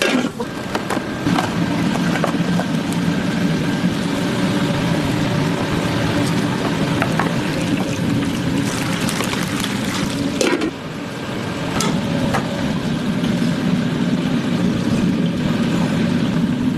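Restaurant kitchen noise: a steady low hum with scattered clinks and knocks of utensils, and a brief drop in the hum about ten and a half seconds in.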